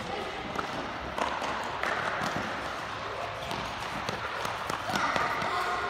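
Many children's running footsteps on a sports-hall court floor, a quick irregular run of light impacts, with children's voices calling out now and then, most near the end.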